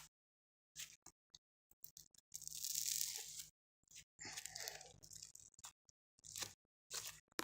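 Slime stretched and pulled apart by hand, making faint crunchy crackling and ripping sounds in a few uneven bursts, the longest two about a third and two-thirds of the way through.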